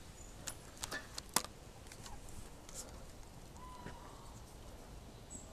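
A few sharp clicks and taps from a feeder rod and reel being handled in a cast, the loudest about one and a half seconds in. A short pitched chirp follows a little before four seconds in.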